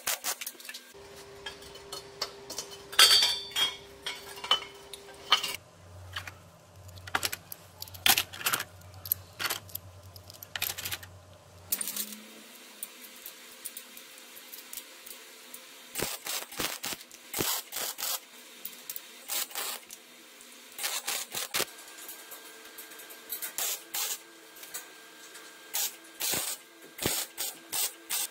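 Short MIG tack-welding crackles and the clinks and knocks of steel square tube and metal hinges being handled and fitted to a frame, in irregular clusters with quieter gaps. A faint steady hum sits underneath and changes pitch twice where the footage is cut.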